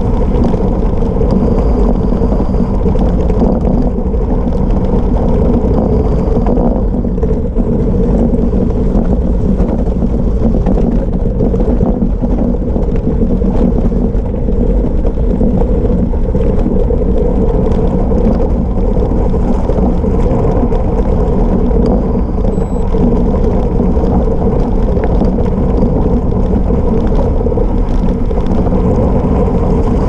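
Gravel bike rolling fast downhill on a gravel road, its 700x40C Maxxis Rambler tubeless tyres and shaking frame giving a steady, loud rumble, the energy mostly low.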